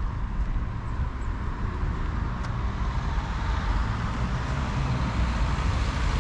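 Road traffic: a steady rush of car tyres and engines on a busy road, growing a little louder near the end.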